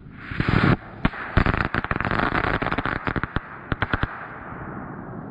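Comet (Keller) Power Balls crackling-ball firework going off: a loud burst of crackling, then a dense run of sharp crackles that thins to a few last pops about four seconds in.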